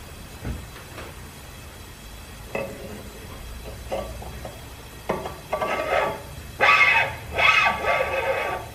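Metal scraping against metal as a ridged cylindrical piece is worked by hand into the freshly bored cylinder of a 1920 hit & miss engine. A few light clicks come first, then rasping scrapes that grow louder, with the two loudest near the end.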